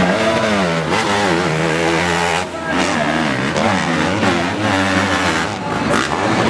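Several motocross bikes racing, their engines revving up and down with the pitch rising and falling as the riders work the throttle, with a brief lull about two and a half seconds in.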